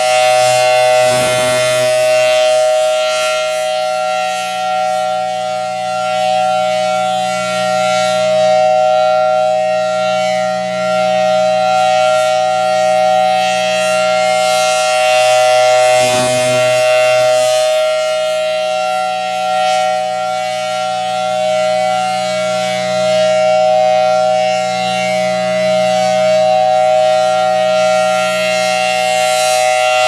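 1970s Federal Sign & Signal Thunderbolt 1000T civil defense siren sounding its steady alert tone during a full three-minute test: a loud, held note that does not rise or fall in pitch, swelling and fading slightly as the rotating horn sweeps round.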